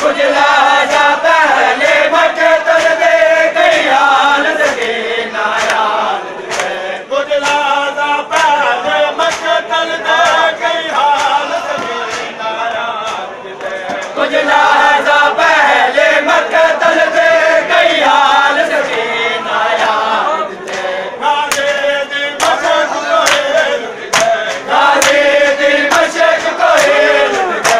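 A crowd of men chanting a noha, a Shia mourning lament, together in short repeated phrases, with sharp slaps of hands striking bare chests in matam. The slaps are clearest near the end.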